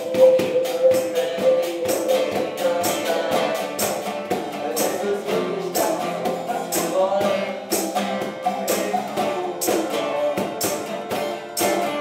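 Band music: a song with guitar and a steady beat of sharp, tambourine-like percussion hits.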